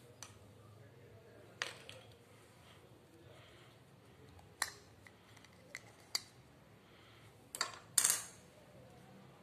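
Small plastic sharpeners and erasers being handled and set down in a cardboard box, giving several light, scattered clicks and taps, the loudest near the end.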